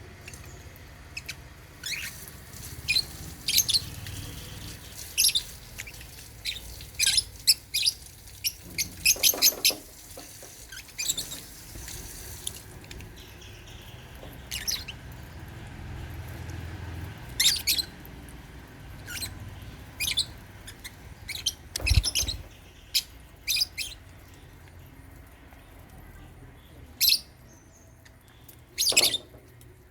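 African lovebirds chirping: short, sharp, high calls at irregular intervals, some in quick clusters, with one low thump about two-thirds of the way through.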